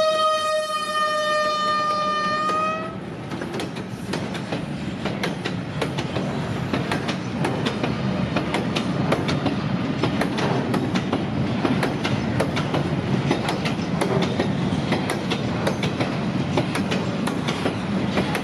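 Class 232 'Ludmilla' diesel locomotive sounding its horn as it passes, the pitch dropping as it goes by, until the horn cuts off about three seconds in. After that come the steady rumble and wheel clicks of loaded double-deck car-carrier wagons rolling past on the rails.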